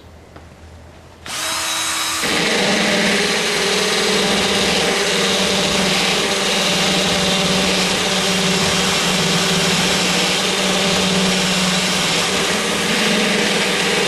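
Electric drill spinning a gouging bit that cuts into the metal and wood of a deadbolt's strike plate opening, so the latch no longer rubs on the bottom. The drill starts about a second in and runs steadily.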